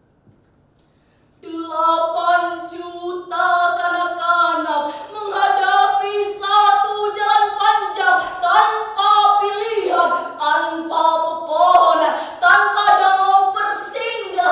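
A woman's voice singing unaccompanied, starting about a second and a half in after a short silence, with long held notes that move up and down in pitch.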